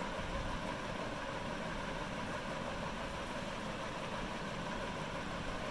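Steady background noise with a faint hum, unchanging throughout and with no distinct events.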